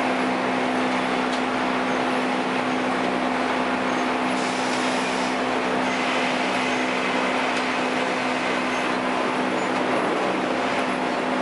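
Sawmill machinery running steadily: a constant engine or motor drone with one strong steady tone over a wash of noise, unchanging throughout.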